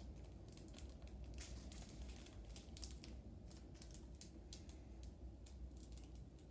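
Faint, irregular small clicks and crinkles of a small plastic glitter container being handled and opened over a glass bowl.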